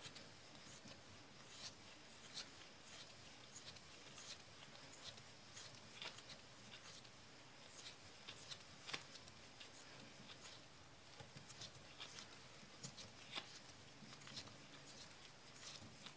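Faint, irregular scraping ticks, a few a second, of a hand-turned lug cutter shaving the steel bottom lugs of a 1911 pistol barrel to fit it to the frame.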